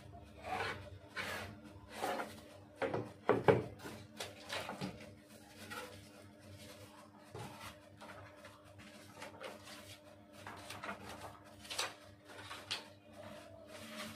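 A3+ manual die-cutting press being worked by hand: an irregular run of metal clunks, knocks and sliding rubs, the loudest knocks about three seconds in, over a faint steady hum.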